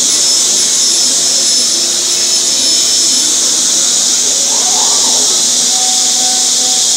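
Bacci Artist six-axis CNC woodworking machining centre running: a steady, loud airy hiss with a thin high whine through the first half.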